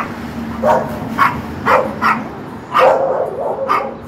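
Small dog barking repeatedly in short, sharp yaps, about two a second.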